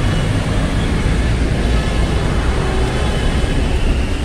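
Steady low rumble of wind buffeting the microphone of a moving bicycle, mixed with road noise on a wet street.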